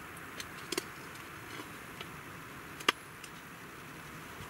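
Knife blade carving a bow notch into a wooden stick: a few short, sharp clicks of the blade cutting into the wood, the loudest about three seconds in, over a faint steady hiss.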